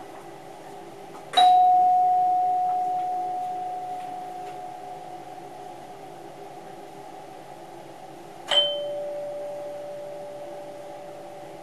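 Cab chime in an NS Mat '64 train's driver's cab, struck twice: a higher bell note that rings out over several seconds, then about seven seconds later a slightly lower note that dies away sooner. A steady hum from the running train lies underneath.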